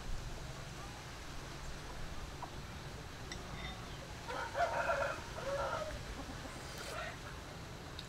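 A rooster crows once, starting about four seconds in and lasting about a second and a half.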